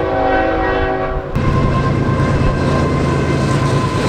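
Union Pacific diesel freight locomotive's horn sounding a steady chord that cuts off about a second in, followed by the low rumble and rail noise of the locomotives passing.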